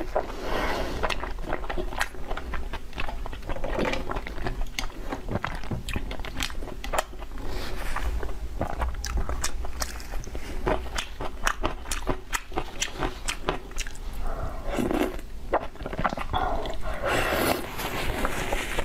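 Close-miked wet chewing and lip smacking of sticky braised pork belly, with many sharp smacks throughout.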